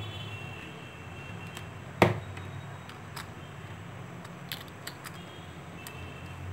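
Small plastic clicks and taps of a Samsung Galaxy J2 (2016) phone's frame and board being handled and pressed back together, with one sharp, loud click about two seconds in. A steady low hum runs underneath.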